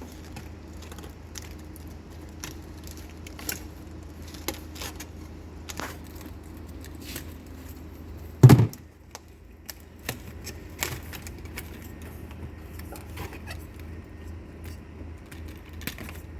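Small clicks and rattles of multimeter test leads and the wires of a removed refrigerator defrost drain heater plate being handled for a continuity check, with one louder knock about halfway through, over a steady low hum.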